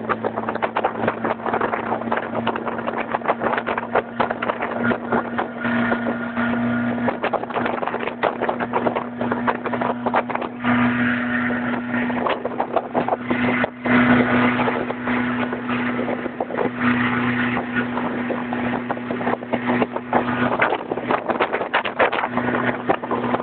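Motorboat engine running steadily under way, a low hum with a rushing noise over it, the engine note swelling briefly several times.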